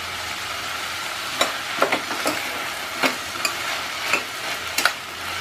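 Chopped vegetables and tomato sizzling in hot oil in a stainless-steel pressure cooker as they are stirred. A spoon knocks and scrapes against the pot about seven times at uneven intervals.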